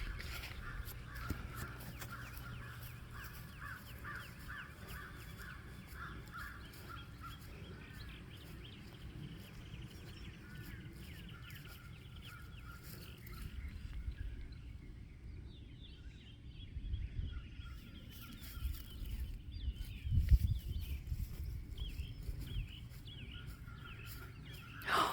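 Birds chirping and calling, many short repeated notes. Under them are a low rumble and a few low thumps, strongest in the second half.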